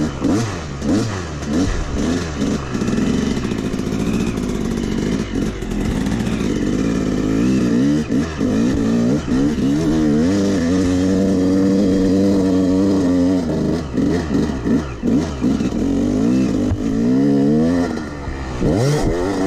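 Yamaha YZ250X single-cylinder two-stroke dirt bike engine being ridden hard, revving up and falling back over and over with the throttle and gear changes. It holds steadier at higher revs for a few seconds a little past halfway.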